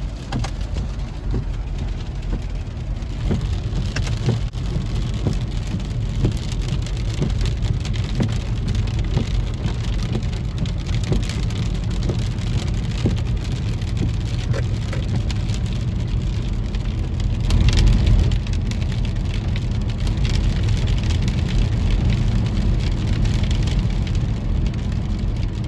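Rain falling, many small drop ticks over a steady hiss, with a steady low rumble underneath that swells briefly about two-thirds of the way through.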